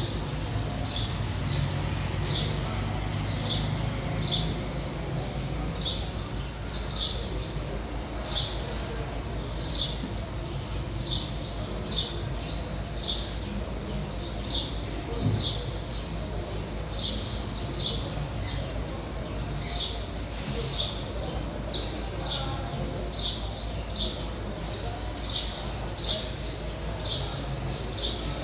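A bird repeating a short, high chirp over and over, a little more often than once a second, over a steady low background rumble.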